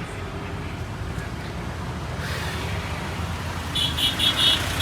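Street traffic noise with a steady low engine rumble. Near the end comes a quick run of short, high electronic chirps, about five a second.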